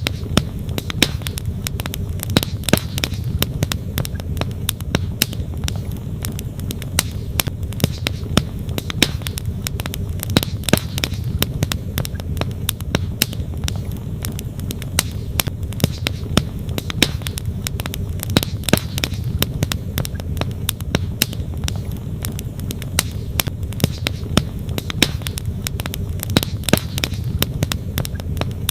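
Wood campfire crackling, with frequent sharp irregular pops and snaps of burning logs. Under it runs a steady low rush of flowing stream water.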